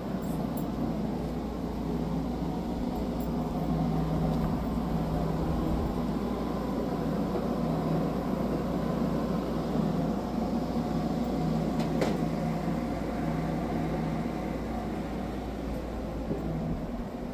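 Steady low mechanical hum, with a single click about twelve seconds in.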